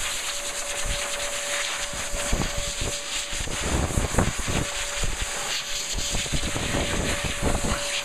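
Handheld hairdryer blowing steadily: an even rushing hiss with a thin steady whine, broken by scattered low thumps.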